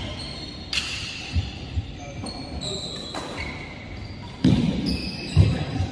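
Badminton rally in a large hall: sharp racket strikes on the shuttlecock and short high squeaks of shoes on the court mat. Two heavy low thumps near the end are the loudest sounds.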